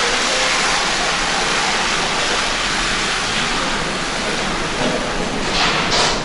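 Hot fudge mixture pouring in a thick stream from a large stainless-steel pan onto a marble slab, a steady splashing hiss that swells briefly near the end.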